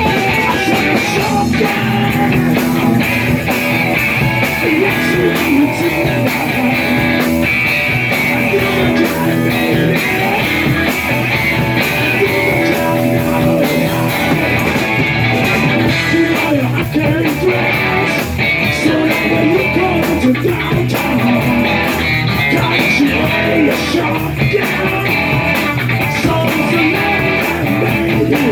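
Live rock-and-roll band playing at full volume, with electric guitar to the fore over bass and drums; no lyrics are sung in this passage.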